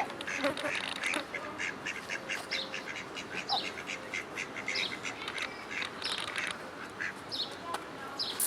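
Ducks quacking, mixed with many short, high bird chirps in quick succession.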